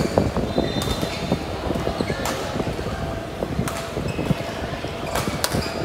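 Badminton rally: sharp racket-on-shuttlecock hits, four or five of them, about a second and a half apart, over steady background noise.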